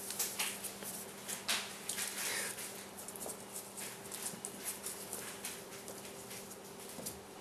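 Two puppies play-fighting on a wooden floor: scuffling bodies and claws clicking and scrabbling on the boards in quick, irregular taps.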